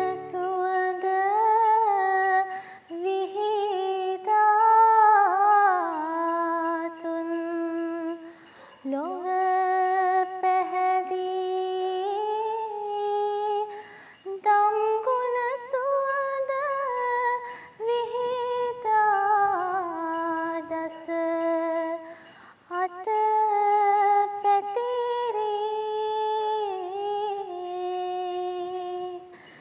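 A girl singing solo in slow phrases of long held notes, with short breaks between them and no instrumental accompaniment.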